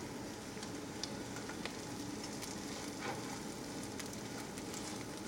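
Eggs folded over like an omelet sizzling steadily in a hot skillet, with a few faint light clicks.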